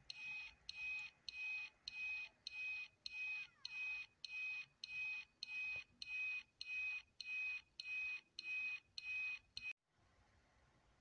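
Electronic beeping from a brass replica of the Voyagers! Omni time-machine prop: a high beep repeated about twice a second, which stops suddenly near the end.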